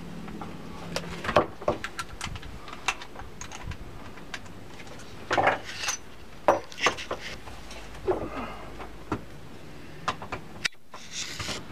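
Hand tools being handled on a wooden workbench: scattered clicks, knocks and light metallic clatter, some sharper than others.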